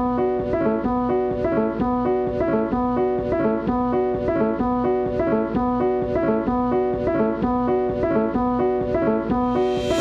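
Background music: a short melodic riff repeating over and over at an even pace, with a rising whoosh building near the end.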